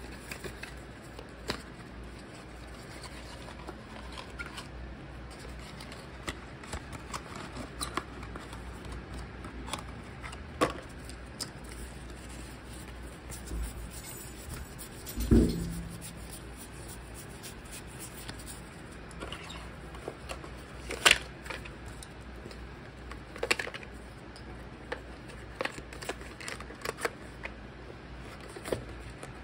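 Cardboard card boxes and playing cards being handled: scattered light clicks, taps and rustles as the cards are fanned and the boxes are moved. A louder thump comes about halfway through, and a sharp tap a few seconds later.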